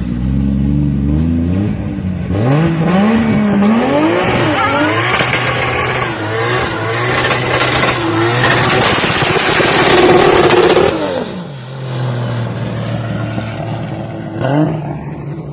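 Car engine idling, then revving up and down a few times and going to hard full-throttle acceleration with a loud rush of engine and tyre noise for several seconds. It then falls back to idle, with one short blip of the throttle near the end.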